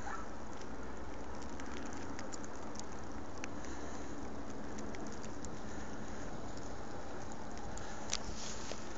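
Steady outdoor hiss on a snowy ski slope, with scattered light pattering ticks and one sharper tick about eight seconds in.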